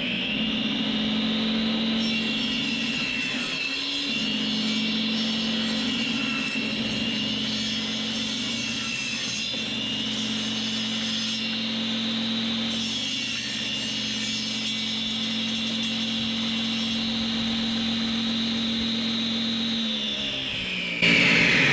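Benchtop table saw running with a steady high whine while a fiberglass fireworks mortar tube is fed through to cut off its base. The saw winds down near the end.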